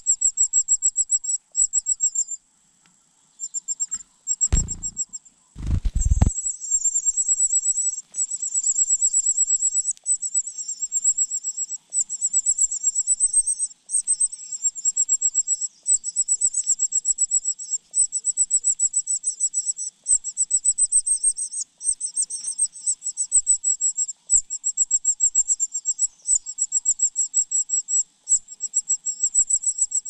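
Cuckoo chick begging: a very high, fast chittering call kept up in long trains with brief breaks. Two dull low thumps come about four and a half and six seconds in.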